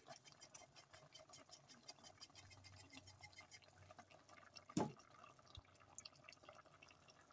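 Near silence: faint fine bubbling from stew simmering in an open stainless steel pot, with a single knock about five seconds in.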